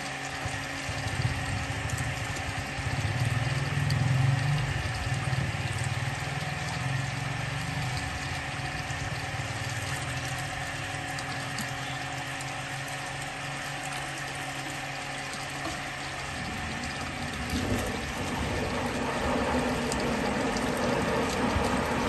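Motorised drain-cleaning machine running steadily, its cable turning inside a drain pipe, with waste water pouring out of the pipe into the pit as the blockage clears. About two-thirds of the way through, the sound grows louder and turns into a rattling mechanical clatter.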